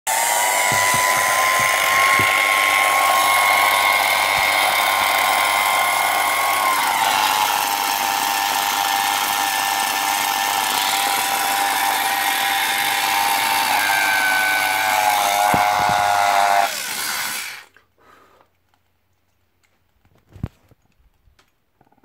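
Hot-air brush hair dryer running at full speed, a steady high whine over a rush of air, while its heating element overheats and glows. The pitch dips slightly about seven seconds in and again near sixteen seconds, and the motor switches off about seventeen seconds in and winds down. A single click follows a few seconds later.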